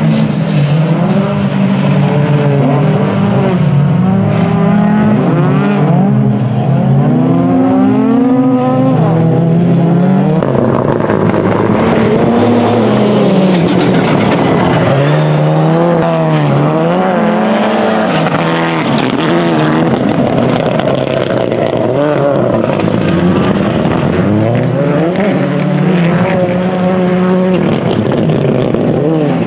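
Rallycross cars racing at full throttle: the engine note climbs hard and drops back again and again as the cars change gear and brake into corners, with tyre and gravel noise as they slide through the turns.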